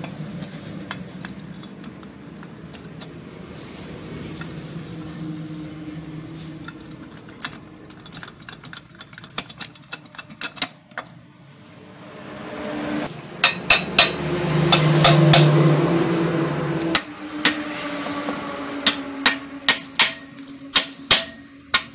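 Metal tapping and clinking as the aluminium crankcase half of an NXG motorcycle engine is worked down and seated onto the other half, with sharp taps that come thick in the middle and about twice a second near the end. A louder steady hum swells and fades in the middle.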